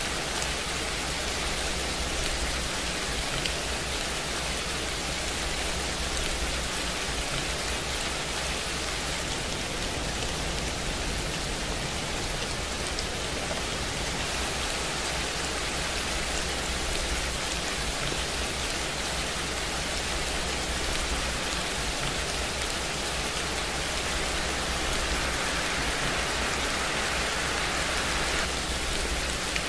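Steady rain ambience: an even hiss of rain falling on a surface, with no distinct drops or thunder, a little brighter for a few seconds near the end.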